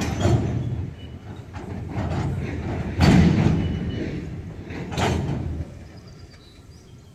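Steel gondola freight cars rolling slowly during switching, with a low rumble and two loud metallic bangs about three and five seconds in, typical of couplers and slack between the cars running in. The rumble fades out near the end.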